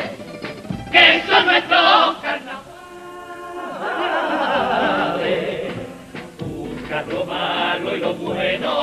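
Cádiz carnival comparsa, a male chorus, singing a pasodoble in harmony with Spanish guitar accompaniment. The singing dips quieter about three seconds in, then swells again.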